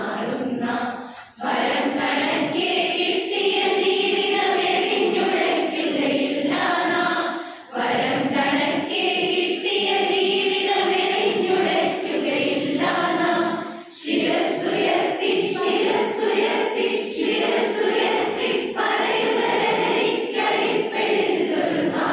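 A large classroom group of young women and men singing a Malayalam song together in unison. The sung phrases break off briefly about a second and a half, eight and fourteen seconds in.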